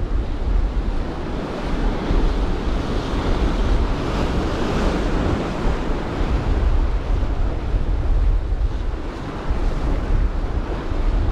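Sea surf breaking and washing over rocks, a continuous rush that swells with a wave about four seconds in, with wind buffeting the microphone.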